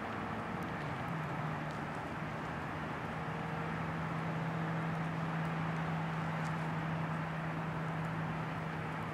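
Distant outdoor tornado warning sirens holding steady tones, faint under a steady rushing background noise. A lower siren tone comes in about a second in and holds.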